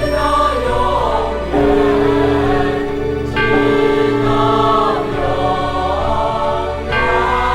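Slow music with voices singing held chords in a choir style; the chord shifts every few seconds.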